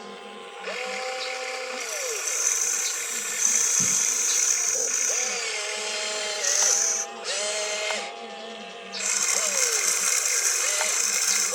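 Small electric motors of a radio-controlled construction model whining in several short runs, each rising in pitch as it starts and falling as it stops, with a hiss during the loudest runs.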